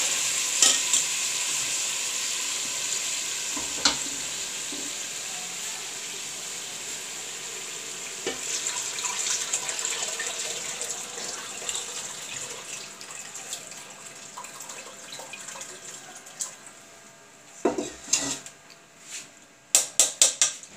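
Mutton stock being poured through a metal strainer into an aluminium pot of hot fried masala: a steady watery hiss that slowly fades. A few sharp metal clinks of the strainer against the pot come near the end.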